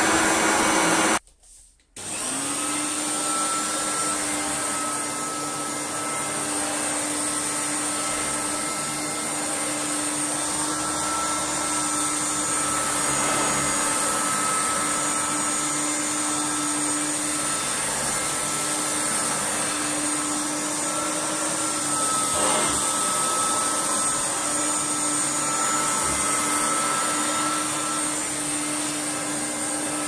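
Hoover Turbomaster U5078 upright vacuum cleaner running with a steady motor hum and whine. It cuts out for under a second about a second in, then carries on steadily at a slightly lower pitch.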